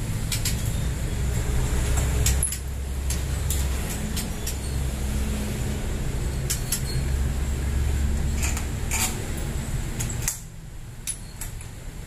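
A steady low engine-like motor hum, which drops away about ten seconds in. Over it come scattered sharp clicks and knocks as a rubber floor mat is handled and fitted in a wooden wire-mesh bird cage.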